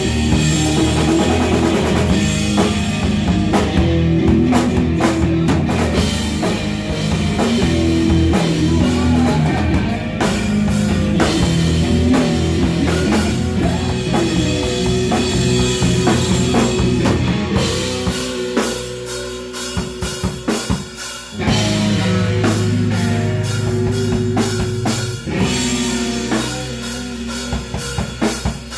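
Live rock band playing without vocals: distorted electric guitar, electric bass and drum kit. About two-thirds of the way through, the bass and drums drop away for a few seconds, then the full band comes back in.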